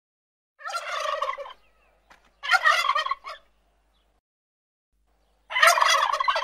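Male domestic turkeys gobbling: three separate gobbles of about a second each, with silent gaps between them.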